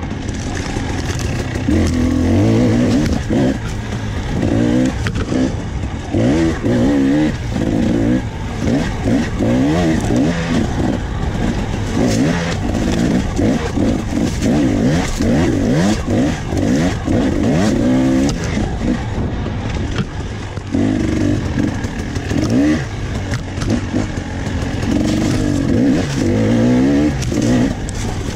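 Dirt bike engine revving up and down again and again as it is ridden along a trail, its pitch rising and falling every second or so.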